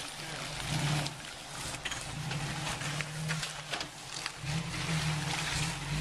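1993 Toyota 4Runner's engine running at low revs while crawling through a rocky creek bed, its hum growing louder about four and a half seconds in. Water trickles underneath, with scattered clicks and crunches of tyres and stones.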